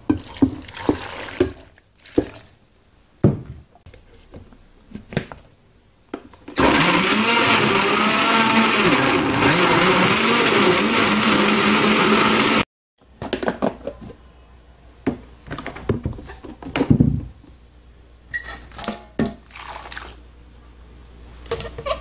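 Countertop blender running for about six seconds, pureeing chopped ingredients with water, then cutting off suddenly. Before and after it come scattered knocks and clatter of the plastic jar and lid being handled.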